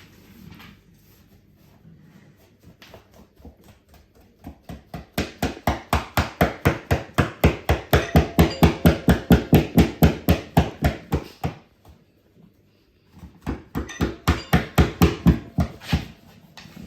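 Rapid, even knocking or hammering, about five blows a second, building up in loudness and stopping suddenly, then starting again for a shorter burst a little later.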